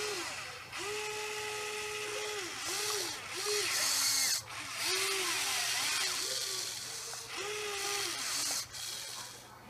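Huina 580 radio-controlled model excavator's electric motors whining as the boom and bucket move, the pitch rising and falling with each movement over a high hiss. One long, steady whine comes about a second in, among several shorter ones.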